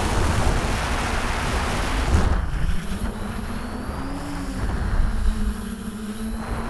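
DJI F550 hexacopter's six Propdrive 28-30S 900KV brushless motors driving 10x5 Graupner propellers, heard from a camera on the frame. For the first two seconds heavy wind rush on the microphone covers it. Then the steady motor-and-prop drone comes through, its pitch rising and falling briefly about four seconds in.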